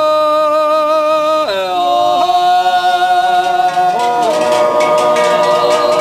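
Slow, wordless a cappella singing in the style of an Appenzell Zäuerli natural yodel: long held notes that slide down to new pitches. From about four seconds in, cowbells clank along with it.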